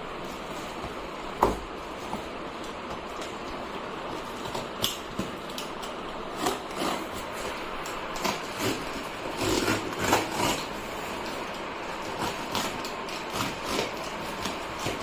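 Scattered knocks, clicks and rustles of plant pots and packaging being handled, over a steady background noise; the sharpest knock comes about a second and a half in, with a busier cluster near the middle.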